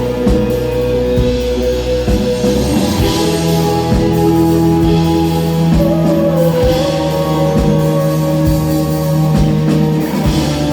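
Live rock band playing an instrumental passage: held guitar chords and melody over a steady drum beat, with no vocals.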